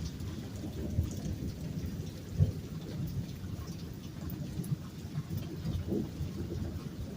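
Thunder rumbling steadily in a thunderstorm, with rain falling. There is a brief, louder thump about two and a half seconds in.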